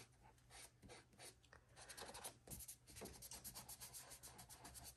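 Terry cloth rubbing quickly over a coloring-book page, lifting and softening harsh lines of tan ink. The faint strokes are sparse at first and turn quick and regular from about two seconds in.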